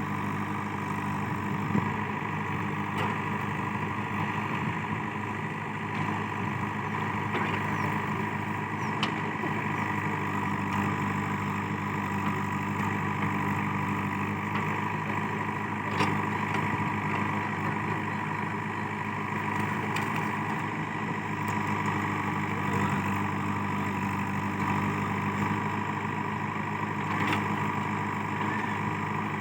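JCB 3DX backhoe loader's diesel engine running steadily, with a few sharp knocks, about two seconds in, midway and near the end.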